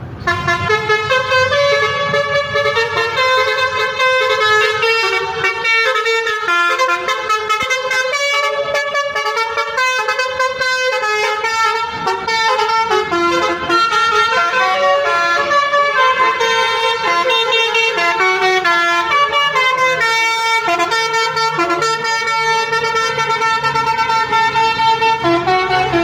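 Telolet horn on a Jetbus 3+ coach: a set of musical air horns playing a fast tune of changing notes, on and on without pause.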